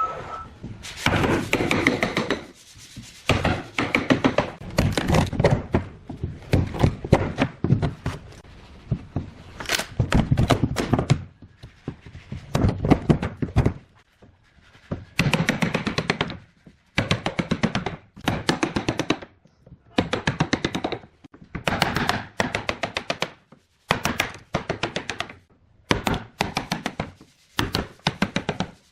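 Rapid bursts of sharp knocks on wood, several strikes a second in runs of one to two seconds with short pauses between, as when a joint is chopped out with a chisel and mallet.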